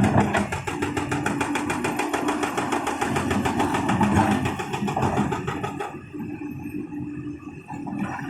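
Excavator-mounted hydraulic breaker hammering at a rapid, even rate of roughly ten blows a second over the running diesel engine. The hammering stops about six seconds in, leaving the engine running.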